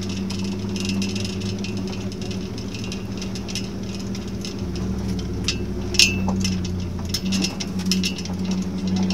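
Vehicle engine running at a steady pitch while driving over a dirt road, with rattling and clicking throughout and one sharp knock about six seconds in.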